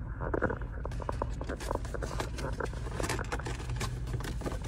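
Cardboard takeout box being opened by hand, its paperboard flaps and handles crackling and scraping in quick irregular clicks, over a low steady hum.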